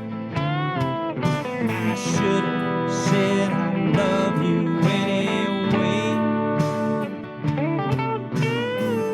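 Country guitar instrumental break over a steady backing, with sustained lead notes that bend up and slide back down.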